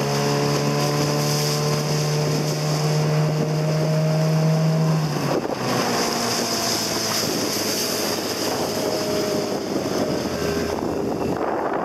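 1999 Mariner 15 hp short-shaft outboard running at speed, pushing a 9-foot dory, with wind on the microphone. Its pitch climbs slightly over the first few seconds, breaks off briefly about halfway, then carries on.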